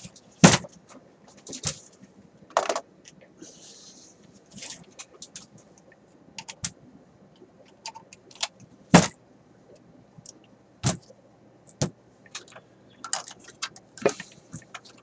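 Irregular metallic clicks and knocks from the sheet-metal case of a Philco car radio as it is handled, turned over and set down on a workbench, the sharpest knocks about half a second in and about nine seconds in.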